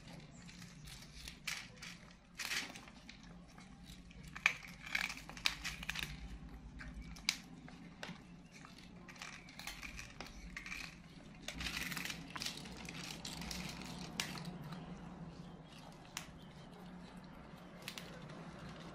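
Paper crinkling and rustling as the monkeys handle cake paper, mixed with small clicks and taps, with a denser stretch of rustling a little past halfway.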